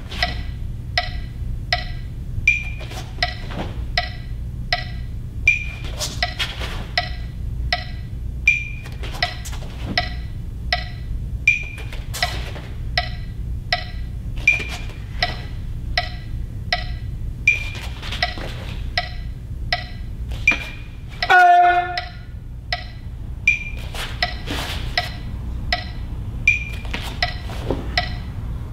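Background music with a steady percussive beat of short clicks, about two a second, over a low steady hum. A brief loud pitched sound stands out about three-quarters of the way through.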